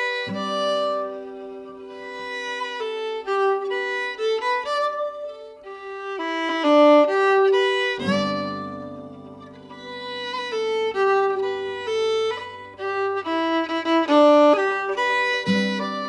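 Instrumental background music: a melody of quick notes over long held low notes that change about every eight seconds.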